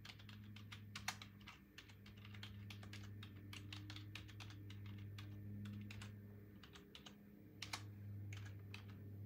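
Computer keyboard typing: an irregular run of quick, faint key clicks over a steady low hum.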